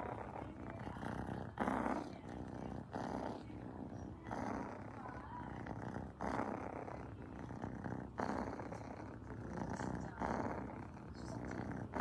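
A domestic cat purring close up, a steady rough rumble that swells with each breath about every two seconds.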